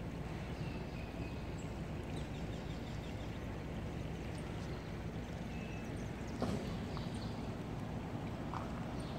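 Outdoor ambient noise: a steady low rumble with a few faint high chirps, and a single sharp knock about six and a half seconds in.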